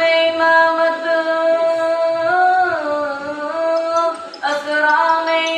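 A solo reciter's high voice chanting unaccompanied through a microphone in long, drawn-out notes, sliding down in pitch after about two seconds and pausing briefly near the end before starting again.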